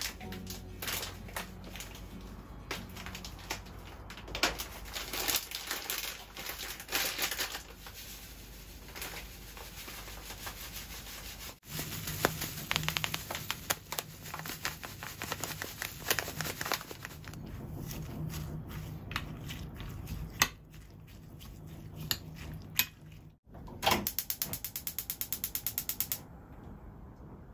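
A utensil mixing egg, panko and a minced filling in a glass bowl, with irregular scraping and clinking against the glass. Near the end comes a quick run of even clicks from a gas stove's igniter as the burner is lit.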